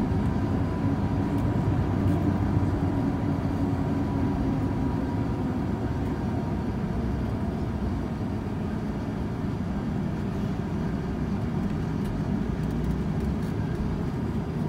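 Airbus A350-900's Rolls-Royce Trent XWB engines at low taxi thrust, heard from inside the cabin over the wing as a steady low rumble. A faint high steady tone fades out about halfway through.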